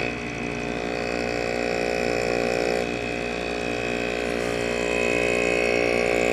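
Window air conditioner's rotary compressor, emptied of refrigerant and pumping air, running steadily with a hum and a high whine. Its cut copper line is blocked by a thumb, so it is building pressure and labouring a little against it.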